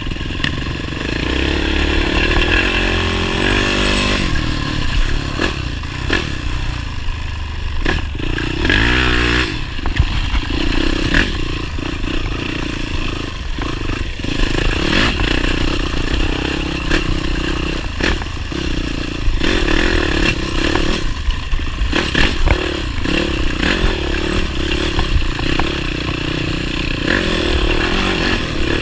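Motorcycle engine running, its pitch wavering up and down twice, with scattered knocks and clatter over it.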